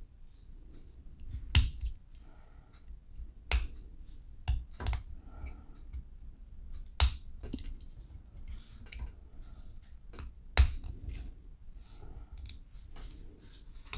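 Small precision screwdriver clicking and scraping against a die-cast metal toy truck cab and its plastic window insert as it is handled. About seven sharp clicks come at uneven intervals, with faint handling noise between them.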